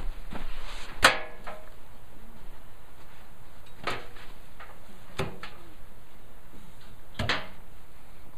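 Four sharp knocks, about one, four, five and seven seconds in, the first the loudest with a brief ring after it.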